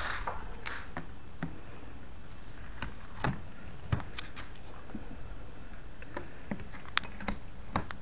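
Light handling sounds of a portable fridge's plastic case: scattered small clicks and taps, with a few sharper clicks later on.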